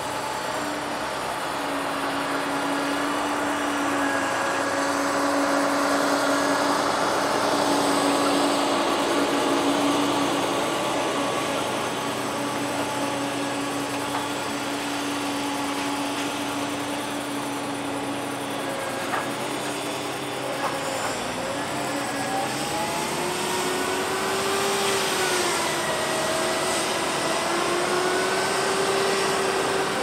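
Claas Lexion combine harvesters' engines running as the machines drive past on a road, a steady engine note with a high whine over it. In the last third the engine note rises and falls as another combine goes by.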